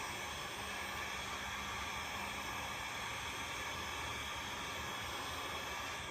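Hot-air tool blowing steadily, a constant hiss with a faint motor hum, as it heats the reassembled smartphone to set the display adhesive.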